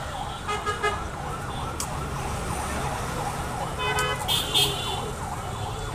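Steel spoon stirring puffed rice round a large steel pot, a continuous rhythmic metallic scrape that wavers in pitch several times a second. The spoon clinks and rings against the pot about half a second in and again about four seconds in.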